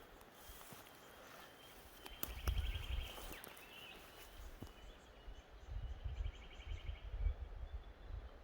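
Two short, rapid trills, each a quick run of even high pulses, from a small bush creature, about two seconds in and again near six seconds. Irregular low rumbling in the microphone runs alongside them.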